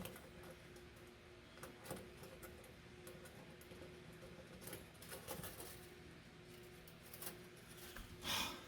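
Faint scratching and small clicks of hands working a fishing wire and seatbelt anchor plate into place inside the car body, over a faint steady hum. There is a short, louder rush of noise near the end.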